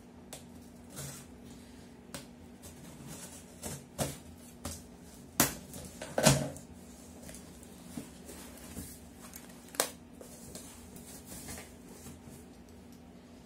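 Box cutter slitting packing tape and plastic on a cardboard box: scattered clicks, taps and scraping, with two louder knocks near the middle. Cardboard flaps are pulled open near the end.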